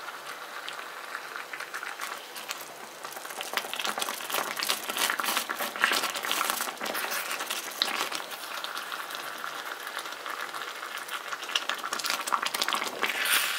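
Thick red tteokbokki sauce bubbling at a simmer around whole long rice cakes, with a wooden spatula stirring and scraping through it. The popping and crackling grow louder a few seconds in, with scattered sharper pops.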